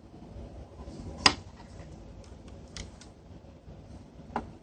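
A few sharp clicks over a low background rumble, the loudest about a second in and two fainter ones later.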